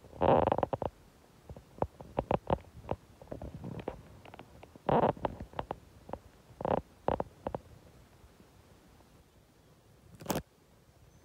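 A sleeping domestic cat purring close to the microphone, the purr coming in pulsing spells every second or two with its breathing. A single sharp click near the end.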